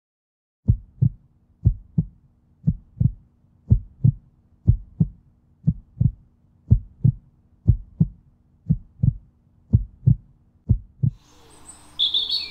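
Heartbeat, a lub-dub pair of low thumps about once a second, eleven times, ending about eleven seconds in. Birds start chirping near the end.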